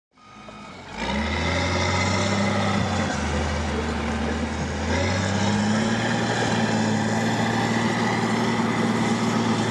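A heavy vehicle's engine runs steadily, fading in over the first second, its low note shifting slightly about three and five seconds in.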